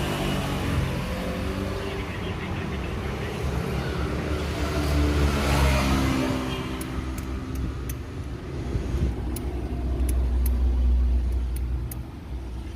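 A car's low rumble that swells twice, with a series of sharp clicks in the second half.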